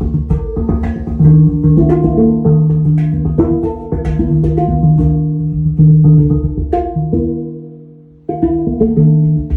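Instrumental music with a steady beat and held bass and guitar notes. It fades down about seven seconds in, then comes back in abruptly about a second later.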